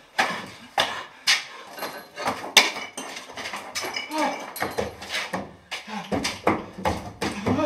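A man's thumps and knocks against a wall and on the floor, many sharp hits in a row, with short whimpering, groaning sounds from his voice about four seconds in and again near the end.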